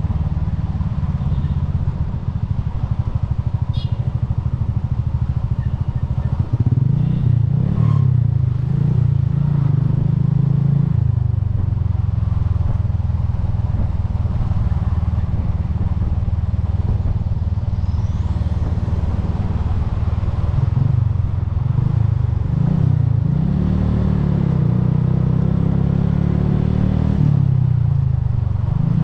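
Bajaj Boxer's single-cylinder four-stroke engine running at road speed, a steady low drone whose note shifts about six seconds in, again around eleven seconds, and a few more times later on.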